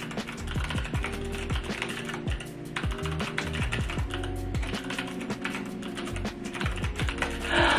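Typing on a Dygma Raise split mechanical keyboard fitted with clicky Kailh Speed Bronze switches: a quick, irregular run of key clicks, with background music. A brief louder noise near the end.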